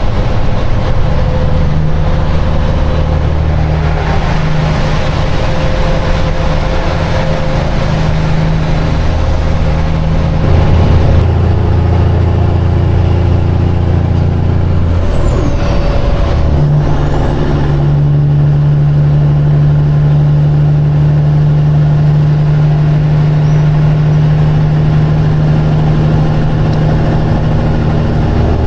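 The Caterpillar diesel of a Peterbilt semi-truck pulling steadily, heard from inside the cab. A thin high whistle joins about ten seconds in. It falls away at a gear change about sixteen seconds in and then comes back, and after the shift the engine runs at higher revs.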